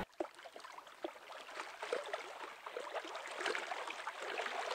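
River water splashing and gurgling at the surface, faint and full of small spatters, growing gradually louder.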